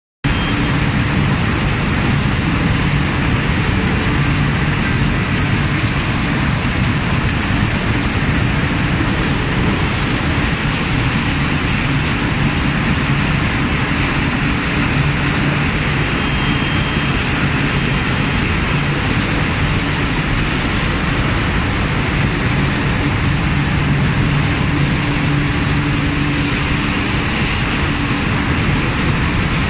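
Roll-fed die-cutting and stripping machine for paper food boxes running steadily at production speed: a dense, even mechanical noise with a low hum under it.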